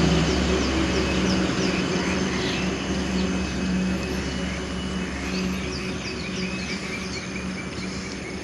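An engine running with a steady hum that slowly fades, with small birds chirping over it.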